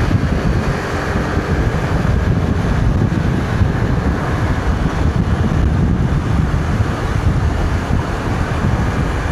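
Heavy wind buffeting on the microphone, with the low noise of a moving vehicle beneath it.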